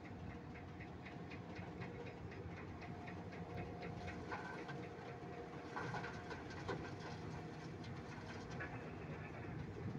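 Diesel engine of a heavy earthmoving machine running at idle, a steady hum with a rapid, rhythmic ticking over it.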